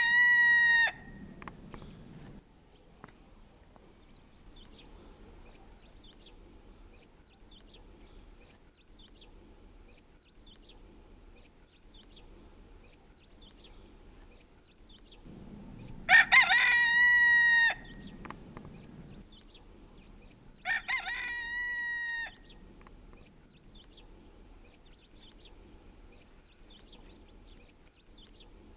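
Pavlovsky rooster crowing: the end of one crow at the start, then two full cock-a-doodle-doos about 16 and 21 seconds in, the second quieter. Faint, short high chirps in between.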